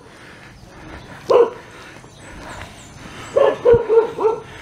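A dog barking: a single bark about a second in, then a quick run of about four barks near the end.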